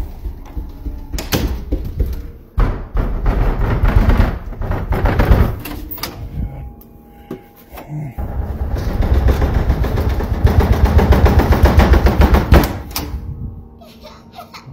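Loud, rapid rattling and knocking in two long bouts, the second about four seconds long, with a few single sharp knocks before them.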